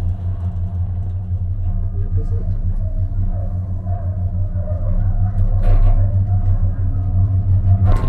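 Steady low rumble and hum of a moving cable-car gondola heard from inside the cabin as it runs along the haul rope. The rumble swells a little around the middle as the cabin passes a support tower, with a brief clack near then.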